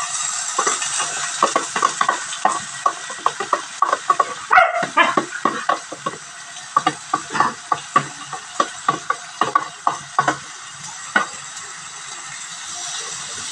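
A spoon knocking and scraping diced opo (bottle gourd) off a plastic cutting board into a wok: an irregular run of sharp taps that stops about eleven seconds in, over the steady sizzle of oil in the pan.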